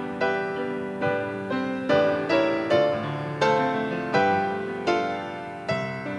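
Piano playing a slow piece: chords and melody notes struck one after another, each note dying away after it is played.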